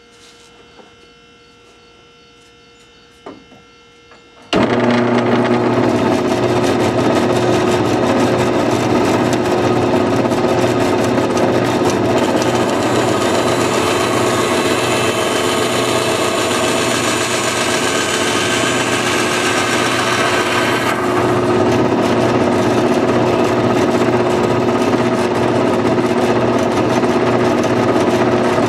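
Band saw switched on a few seconds in, then running steadily. Through the middle a higher hiss joins in as the blade cuts through a toy elephant figurine. The hiss stops after the cut and the saw runs on.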